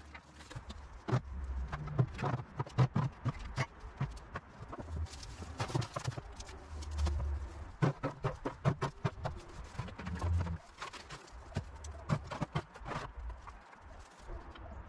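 Clattering knocks of sticks, wood and bricks being picked up and tossed as yard debris is cleared, in several bursts of quick clacks.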